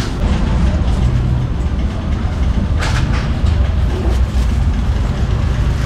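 Steady low rumble of street traffic. A short sharp rustle or clatter comes about three seconds in.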